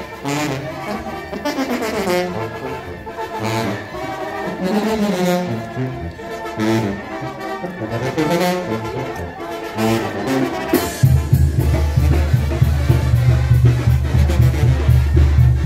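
Brass band music: trombones and trumpets play a melody, and about eleven seconds in a loud low bass part comes in underneath.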